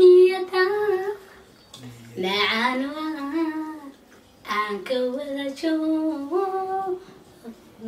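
A young woman singing a song aloud without accompaniment, in several phrases of held, wavering notes with short breaks between them. She is singing along to music that only she hears through her earphones.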